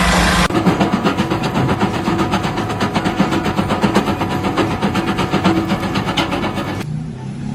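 Heavy construction machinery running, a diesel engine with a rapid, even rattling beat. It cuts off abruptly near the end to a quieter, different sound.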